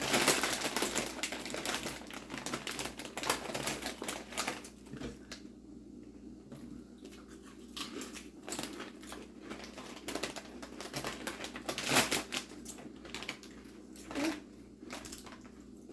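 Potato chips being crunched and eaten, with crinkling from the chip bag. The crackling is dense for the first few seconds, then thins out to scattered crunches.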